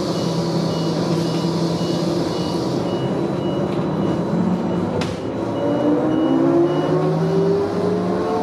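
Neoplan AN440LF electric trolleybus heard from inside while moving: the electric traction drive gives a steady hum, then a whine that rises in pitch from about five seconds in as the bus speeds up. A high beep repeats at a steady pace throughout, and there is one sharp click about five seconds in.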